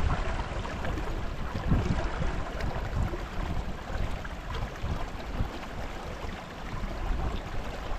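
Wind buffeting the microphone in irregular low gusts over the steady rush of a running creek.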